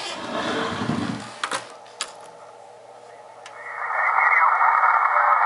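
Receiver audio from a Drake R-4C shortwave receiver comes up about three and a half seconds in as its gain is turned up: a steady hiss of band noise, cut to the narrow band of its SSB filter. Before that there is camera handling and a couple of sharp clicks.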